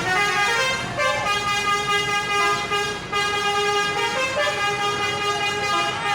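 A bus's 'telolet' musical horn playing a tune of long held notes, stepping to a new pitch every second or so.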